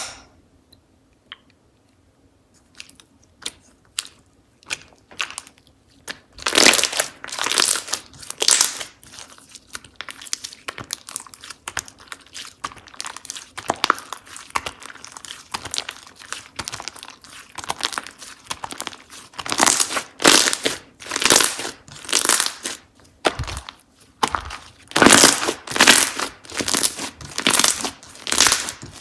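Slime being squeezed and stretched by hand, making crackling, crinkly pops. It is nearly quiet for the first six seconds apart from a few faint clicks, then the crackling runs on densely to the end, in bursts.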